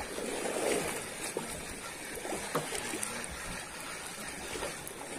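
Sea water lapping and splashing against the hull and outrigger float of a small boat.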